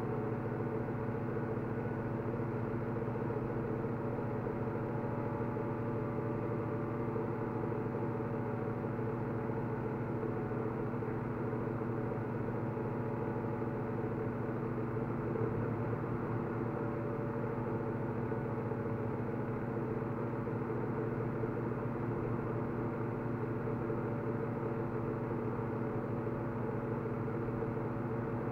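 Steady mechanical hum at one unchanging pitch, running without a break.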